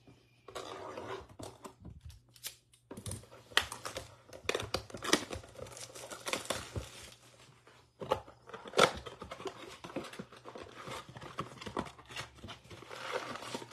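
A 2021 Panini Chronicles football trading-card blaster box being torn and crinkled open by hand, its wrapping and cardboard flap pulled off: an irregular run of sharp crackles and rips with a couple of short pauses.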